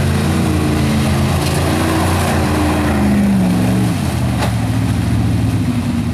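Lifted Dodge Ram pickup's engine revving hard as it drives through a mud pit, its pitch climbing for about three seconds, then dropping sharply about four seconds in as the throttle comes off, and running steadily lower after that. A single short sharp knock about a second after the drop.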